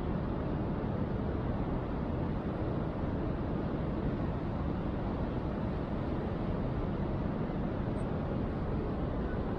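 Steady low rumbling noise with no distinct tones or events, even in level.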